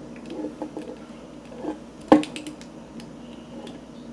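Plastic parts of a Transformers Fast Action Battlers Bumblebee toy clicking and rattling as it is handled, with one sharp click about two seconds in.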